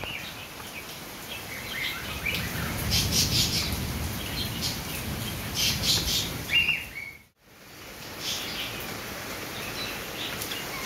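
Small birds chirping in short calls over a steady hiss of falling rain. The sound cuts out for a moment about seven seconds in, then the chirping goes on.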